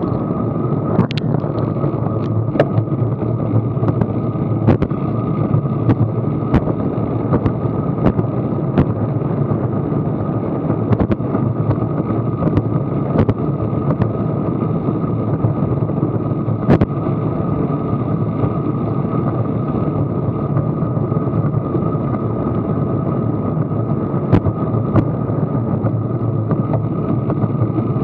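Wind rushing over an action camera's microphone on a bicycle riding at about 16 mph: a steady, dull rush, with irregular sharp ticks and knocks scattered through it.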